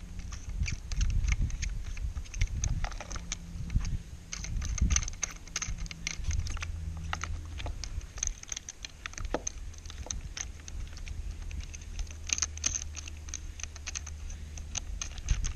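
Small irregular clicks, taps and rattles of a plastic-and-metal roof-rack kayak-lifter clamp being handled and fitted onto a car's roof crossbar.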